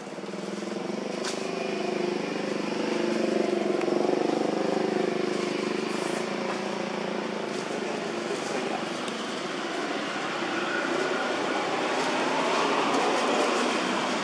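Motor vehicle engine running and passing, rising over the first few seconds to its loudest about four seconds in, then holding steady.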